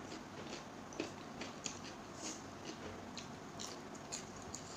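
Close-miked eating sounds: a person chewing raw cucumber, with soft, irregular small crunches and mouth clicks a few times a second.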